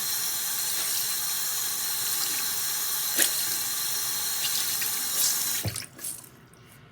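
Water running steadily from a sink tap as a makeup sponge is soaked under it, with a small click about three seconds in; the tap is shut off near the end.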